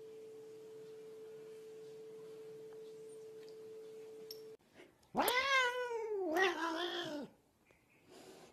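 A faint steady hum that cuts off about four and a half seconds in, then a cat yowls loudly: one long drawn-out call, rising and then falling in pitch, lasting about two seconds.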